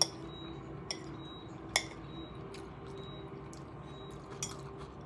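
A metal fork clinking against a bowl while eating: about five short, sharp clinks, the loudest just under two seconds in, over quiet room tone.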